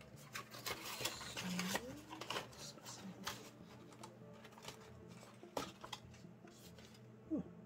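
Faint rustling and small clicks of a paper construction manual being handled and unfolded. The sounds are busiest in the first few seconds, then thin out to occasional taps.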